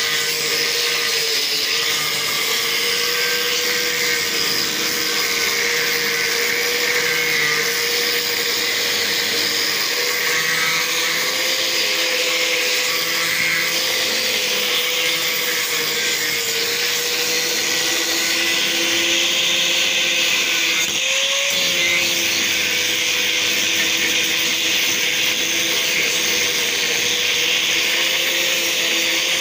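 Electric angle grinder running steadily with a whine that wavers slightly under load, its disc grinding a wooden plank surface flat with a gritty rasp. There is a brief change in the sound about two-thirds of the way through.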